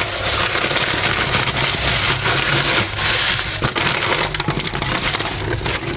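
Packaging being handled, a continuous loud crinkling and crackling rustle.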